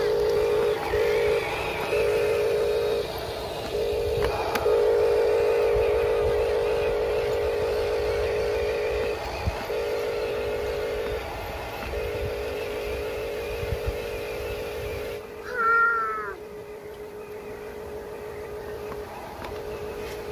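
Electric drive motor and gearbox of a radio-controlled construction truck whining at a steady pitch, cutting out and starting again several times as it is driven in short runs. A short high call that rises and falls breaks in about three quarters of the way through.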